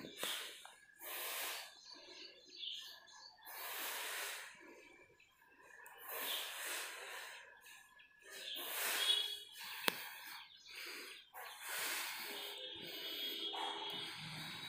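A person breathing close to the microphone: slow, hissy breaths about every two and a half seconds.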